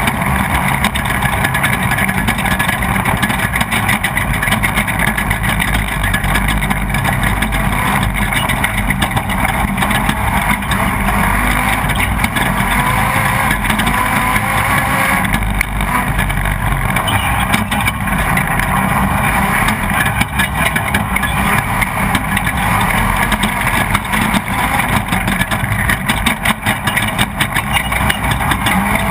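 Off-road race vehicle's engine running hard at speed, heard from on board, over steady wind and road noise with many small knocks and rattles.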